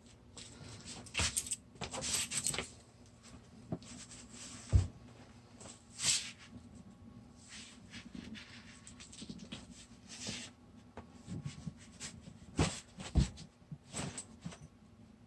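Scattered knocks, scrapes and rustling from handling a Onewheel Pint wheel and tire on the floor while working the tire off, with two heavier thumps about five and thirteen seconds in.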